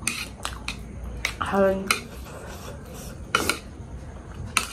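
Utensils clicking against dishes several times at irregular intervals, with a short voiced hum about one and a half seconds in.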